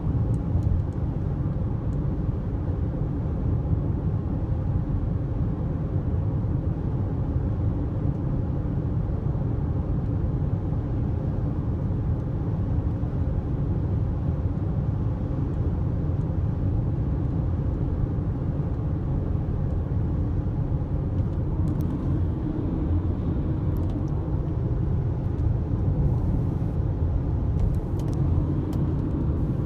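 Steady low road rumble of a car cruising at freeway speed, heard from inside the cabin: tyre and engine noise, with a few faint clicks near the end.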